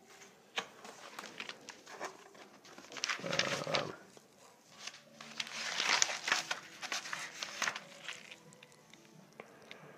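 Paper rustling and handling clicks as a binder is opened and its pages are leafed through, louder in two spells, about three seconds in and around six seconds in.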